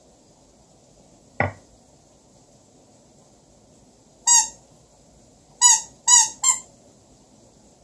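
A single sharp click, then four short squeaks from squeezed squeaky gnome toys: one, and then three more in quick succession about a second later.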